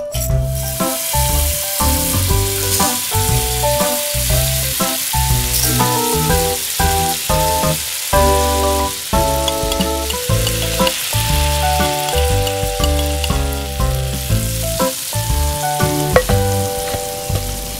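Hot oil sizzling in a miniature steel wok as seeds and then chopped onion and tomato fry in it, with a single clink of a spoon against the pan near the end. A melody with a bass line plays over it.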